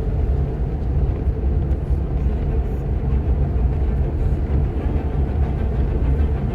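Moving bus running along the road: a steady, low rumble of engine and road noise.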